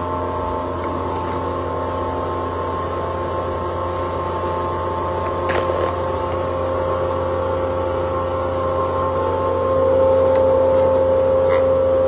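Multivac chamber vacuum packaging machine running with a steady humming drone from its vacuum pump, getting louder about ten seconds in, with a couple of faint clicks.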